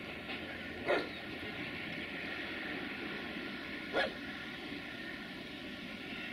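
Two short dog barks about three seconds apart, over the steady rolling noise of a container freight train moving away.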